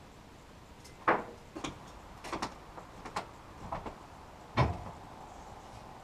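Sawn lumber boards being set down on a stack: a string of irregular wooden knocks and clacks, the heaviest a dull thump about four and a half seconds in.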